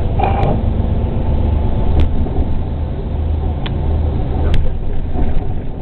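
City bus driving, heard from inside the passenger cabin: a steady low engine drone and road noise, with a few sharp rattles from the bodywork.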